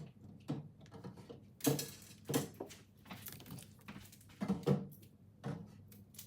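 Irregular knocks and clunks of groceries being handled and set down while a refrigerator is restocked, a few sharp hits a second or so apart.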